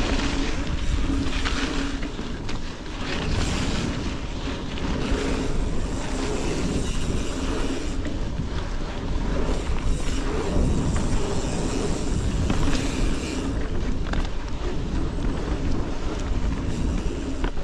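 Canyon Spectral mountain bike rolling fast along a dirt forest singletrack: tyre noise on the dirt with small knocks and rattles from the bike over the trail, under steady wind noise on the microphone.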